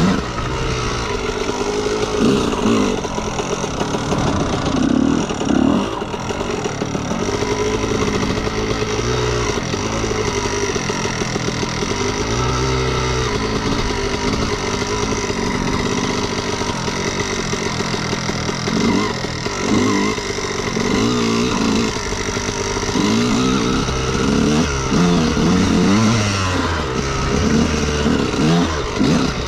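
2003 Honda CR125R's single-cylinder two-stroke engine being ridden, its pitch repeatedly rising and falling with the throttle.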